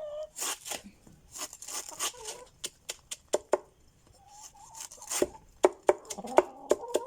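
Chopping banana stalk with a blade into small pieces for chicken feed: a run of sharp, irregular chops, several a second at times with short pauses between.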